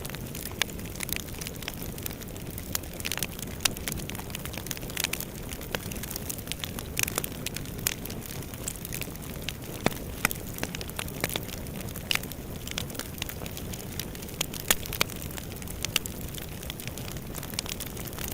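Fire burning in a fireplace: a steady low noise of flames with frequent sharp crackles and pops at irregular intervals.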